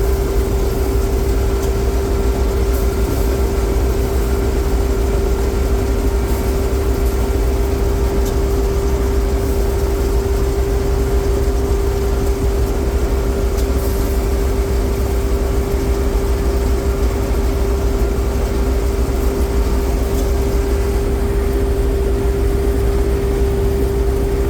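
Combine harvester running steadily under load while harvesting barley: a continuous low engine rumble with a steady whine over it.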